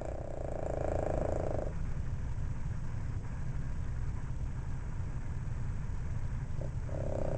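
Boston terrier snoring in her sleep: one snore of about a second and a half at the start, and another beginning near the end, over a steady low rumble.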